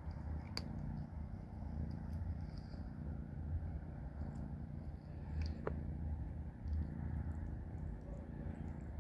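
A kitten purring: a low, steady rumble, with a couple of sharp clicks.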